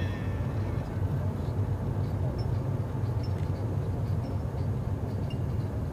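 Steady cabin noise of a manual Subaru cruising at speed: a low, even engine and road rumble with tyre noise.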